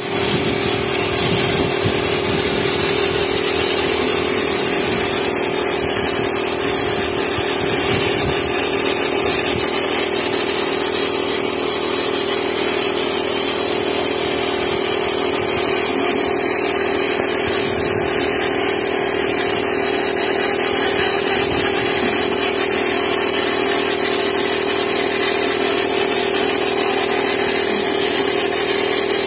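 A motor running steadily, a constant hum with a strong high hiss over it.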